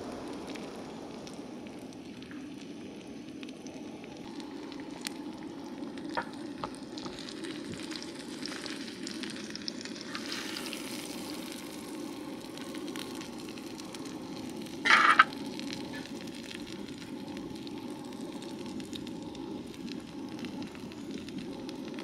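Moose-and-pork burger patties sizzling on a hot cooking surface, a steady frying hiss with a few light clicks, and one brief loud clatter about fifteen seconds in.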